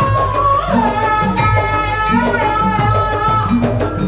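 Live Banyuwangi gandrung-style gamelan music: a held melody line that slides between pitches, over repeated low drum strokes and a steady metallic jingle.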